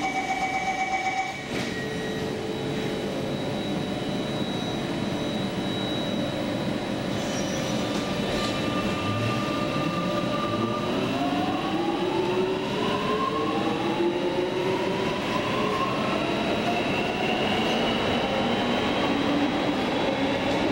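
Metro train interior: rapid electronic door-closing beeps stop about a second in, then the train pulls away, with its traction motors giving a whine of several tones that rises in pitch as it accelerates over the running rumble.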